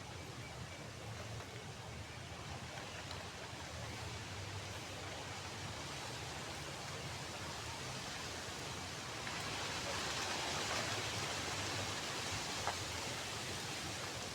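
Campfire burning with a steady hiss that swells for a few seconds, and a single sharp pop near the end.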